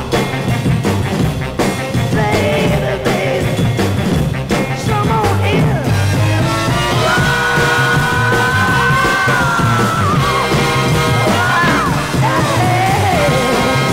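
A vinyl 7-inch rhythm-and-blues record playing on a turntable: a male singer over a band with a steady beat, holding one long high note about seven seconds in.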